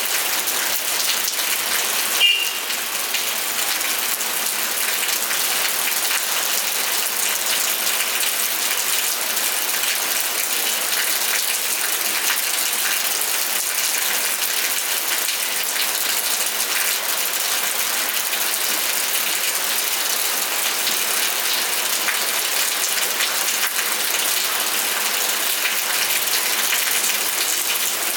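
Steady rain: a dense, high hiss of falling drops with fine crackling patter. One brief sharp knock sounds about two seconds in.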